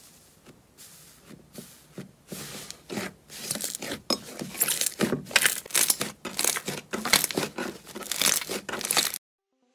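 Thick yellow slime being pressed, stretched and squeezed by hand, giving a dense sticky crackling. The crackling is faint at first, grows louder after about two seconds, and cuts off abruptly near the end.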